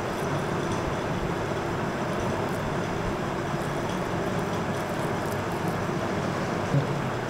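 A steady mechanical hum with an even rushing noise, like a running fan. There is one short low bump near the end.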